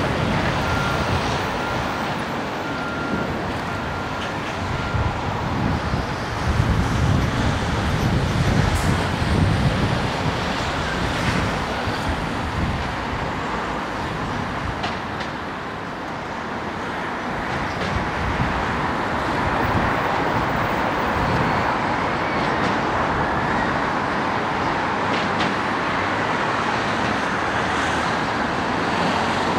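Road traffic: cars driving slowly through a ferry terminal, a steady mix of engine and tyre noise, with a louder low rumble of a nearby vehicle passing about seven to ten seconds in.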